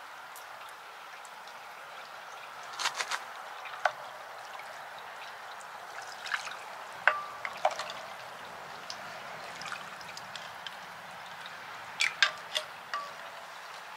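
A metal ladle clinks against cooking pots in several short clusters, a few strikes ringing briefly. Under the clinks runs a steady hiss, like liquid pouring or simmering.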